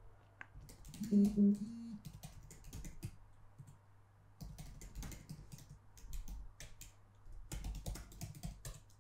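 Typing on a computer keyboard: irregular clusters of key clicks with short pauses, as text is entered at a terminal prompt. About a second in, a brief low hum of a person's voice is the loudest sound.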